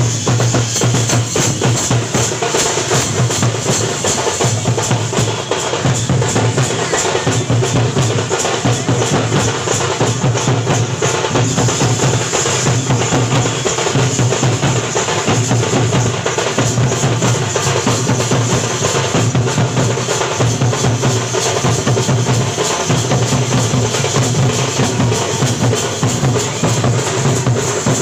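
Loud, continuous festival drumming: dense, fast drum strikes over a deep beat that pulses at a regular pace.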